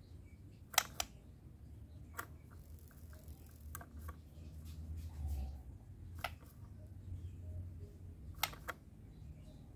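A few scattered sharp clicks and taps, irregularly spaced, over a faint steady low hum.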